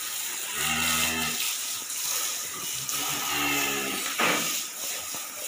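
A cow mooing twice, two low, steady calls each about a second long, with a sharp knock a little after four seconds in.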